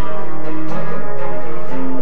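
Instrumental music: a loud passage of held notes that change about every half second, with no singing.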